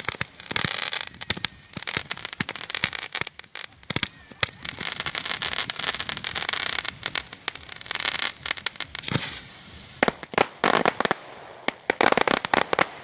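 Fireworks display: dense, rapid crackling and popping with many sharp bangs. It thins out for a moment about two-thirds of the way through, then several loud bangs come close together near the end.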